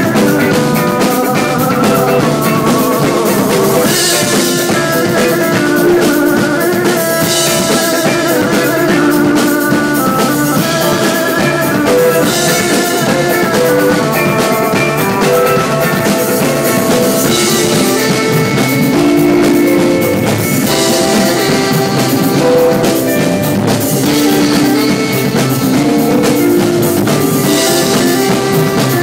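Loud live rock band music: electric guitars and a drum kit, with cymbal washes coming back every few seconds over a dense layer of held notes.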